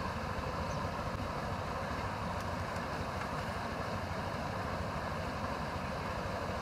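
Steady drone of an engine running, even in level throughout.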